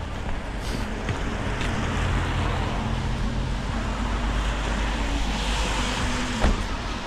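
A motor vehicle's engine running with a steady low hum over road noise, and one sharp knock about six and a half seconds in.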